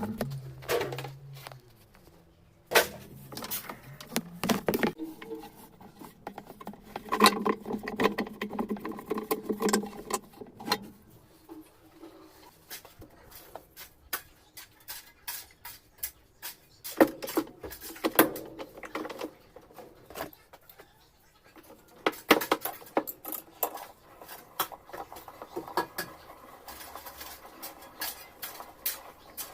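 Irregular clicking, knocking and clinking of hand tools and metal and plastic parts being handled while a top-loading washing machine is taken apart, with short squeaky scraping stretches.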